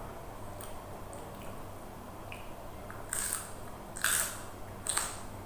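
A person eating close to the microphone: chewing, with three short crunchy, wet bites in the second half.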